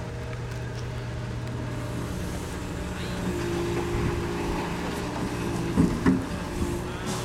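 Volvo EC380E L excavator's 13-litre six-cylinder diesel engine running steadily under load, with a hydraulic whine coming in about three seconds in as the boom lifts the sieve bucket out of the sand. Two sharp knocks near the end are the loudest sounds.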